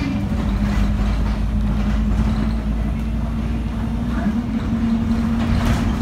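Double-decker bus running, heard from inside the cabin: a steady engine and drivetrain rumble with a held droning tone that steps up slightly in pitch about four seconds in.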